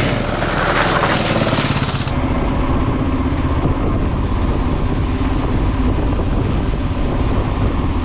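Kawasaki KLR650 single-cylinder adventure motorcycle riding past on a gravel road, its engine note rising and then falling as it goes by. About two seconds in, the sound cuts to the bike heard from on board: a steady engine drone under a low rumble at cruising speed.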